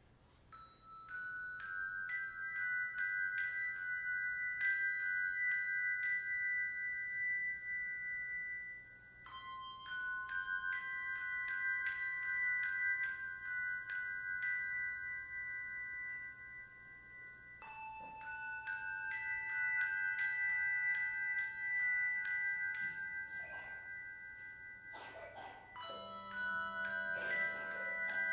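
A handbell choir ringing a slow piece: bells struck one after another, their tones overlapping and ringing on into full chords. It comes in three phrases starting about half a second, nine seconds and eighteen seconds in, and lower bells join near the end.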